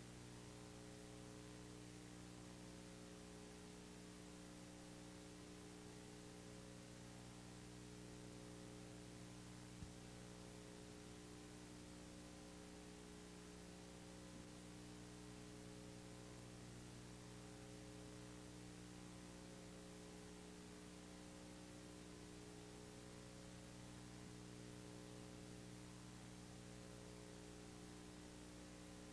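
Near silence: a steady low electrical hum with faint hiss, and one faint click about ten seconds in.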